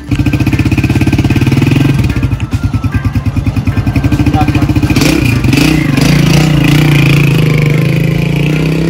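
Small street motorcycle engine running with a fast, even pulse, then revving about five seconds in as the bike pulls away, settling into a steady higher note.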